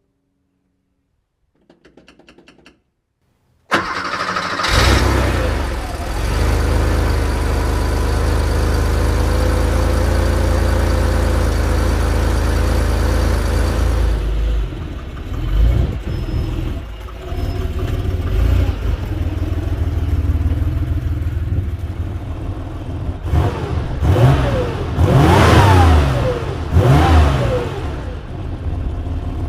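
1984 Porsche 911 Carrera 3.2's air-cooled flat-six, cranked briefly and catching about four seconds in. It runs at a raised idle for about ten seconds, drops to a lower idle, then is revved several times in quick blips near the end.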